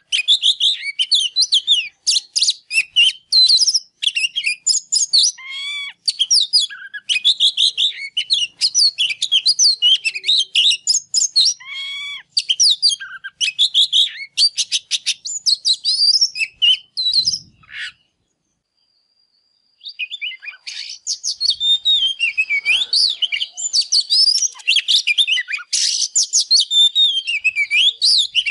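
Male Oriental magpie-robin singing a fast, varied song of rich whistles and chirps in quick phrases, the excited full-voiced song of a bird in high breeding form (căng lửa). The song breaks off for about two seconds about two-thirds of the way through, then resumes.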